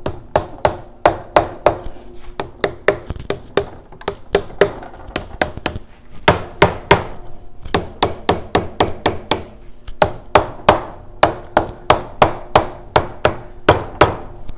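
Rubber mallet tapping repeatedly on the cam cover of a Harley-Davidson Sportster/Buell engine, about three blows a second with a couple of brief pauses. The blows are to break loose a corroded cover that is stuck to the crankcase.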